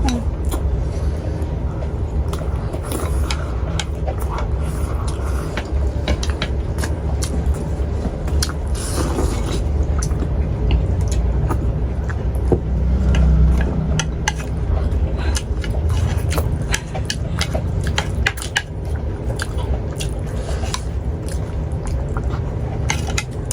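Chopsticks clicking and scraping against plates as momos are poked, picked up and eaten, with many small scattered clicks. A steady low rumble runs underneath.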